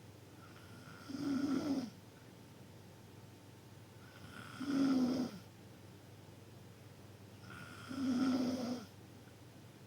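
A person snoring loudly, three snores about three seconds apart, each lasting under a second.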